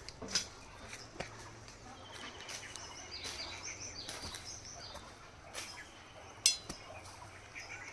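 Birds calling and chirping, with a short buzzy trill about two seconds in and scattered sharp clicks; the loudest sound is a brief, sharp call or click about six and a half seconds in.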